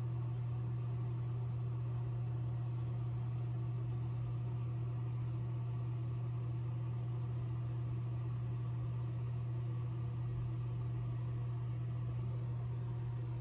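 A steady low hum, with fainter tones stacked above it, unchanging throughout.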